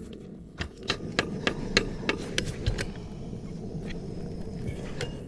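A hand-held heating tool blowing steadily as it warms the top of bitumen gutter-repair tape to melt it. A string of sharp clicks and taps sounds over it in the first three seconds.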